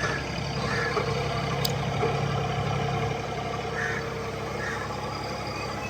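Mini excavator's diesel engine running steadily.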